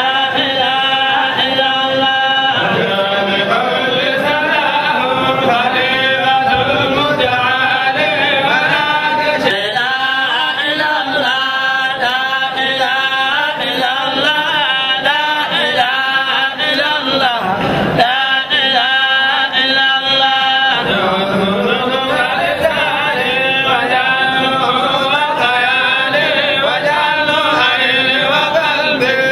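A group of men chanting Islamic devotional songs together, led by one voice on a handheld microphone, with a short break a little past halfway through.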